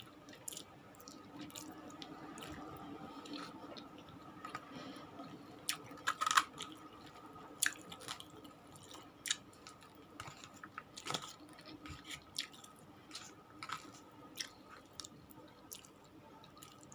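A person chewing cheesy food close to the microphone: soft, wet mouth clicks and smacks at an irregular pace, with louder bursts about six seconds in and again near eleven seconds. A faint steady hum runs underneath.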